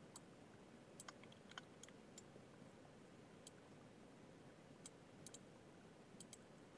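Faint, scattered clicks of a computer mouse and keyboard, about a dozen, some in quick pairs, over a quiet room hiss.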